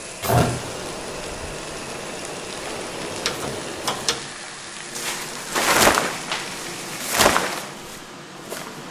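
Pan fire on a kitchen stove hissing and crackling steadily. There is a thump just after the start, a few sharp clicks around three to four seconds in, and two loud whooshing surges of flame at about six and seven seconds.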